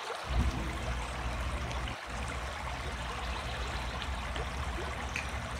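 Steady rushing air noise with a low hum underneath, from an electric pedestal fan running.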